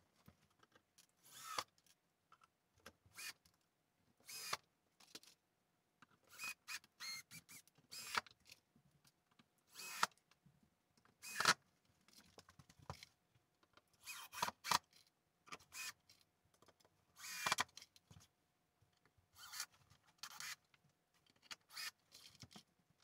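DeWalt 20V cordless drill/driver driving screws through the pedestal base into 2x4s, running in a string of short bursts with gaps between.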